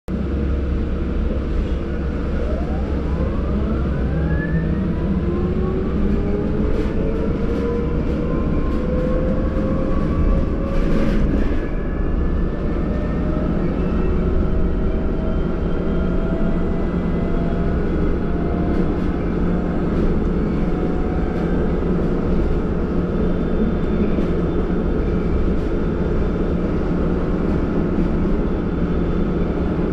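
City bus heard from inside, driving: a steady low rumble with a whine that rises in pitch over the first dozen or so seconds as the bus speeds up, then holds steady. A few faint clicks near the middle.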